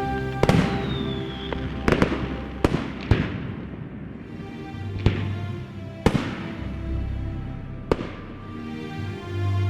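Fireworks shells bursting: about seven sharp bangs a second or so apart, each fading out, over background music.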